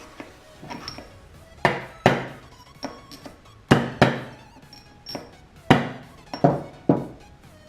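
Hammer blows on a pin punch driving a worn bushing out of a 4L60E transmission's input sun gear: about seven sharp metallic strikes with a short ring, several coming in quick pairs.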